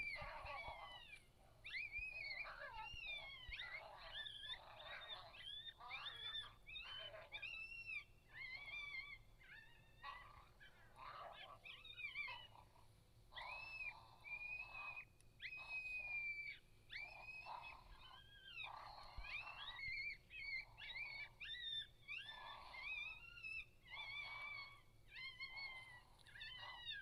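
Coyotes yipping and howling together: several voices rise and fall over one another in runs broken by short pauses.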